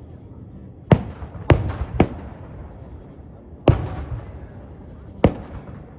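Fireworks bursting overhead: five sharp bangs, three in quick succession about a second in, then two more spaced well apart, each trailing off in a short rumble.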